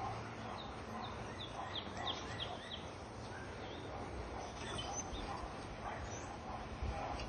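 Breathy blowing into a dry grass tinder bundle holding a glowing char cloth ember, to coax it into flame. A bird chirps quickly about eight times in the first few seconds.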